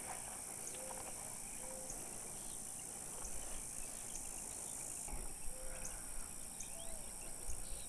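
Steady high-pitched chorus of insects such as crickets, with a few faint, short, low calls scattered through it.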